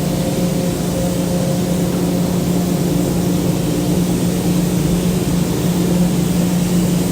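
Steady mechanical drone from a paint spray booth's fans, a low hum over an even hiss of moving air.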